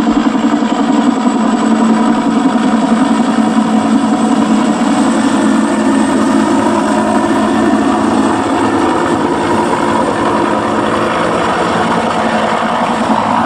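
Helicopter noise played back as a simulation of emergency-centre noise: a loud, steady engine and rotor drone.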